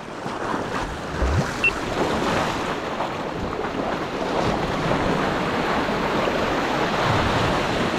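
Sea waves surging and washing over low rock ledges in a steady rush of surf, with wind buffeting the microphone.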